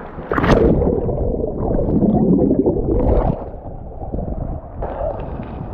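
Sea water sloshing and gurgling around a kayak, with a sharp splash about half a second in and a low rumble of wind on the microphone.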